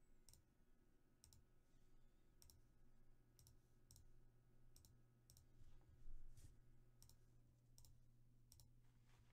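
Faint, sharp computer mouse clicks, about a dozen at irregular intervals with one louder click about six seconds in, over a steady low electrical hum.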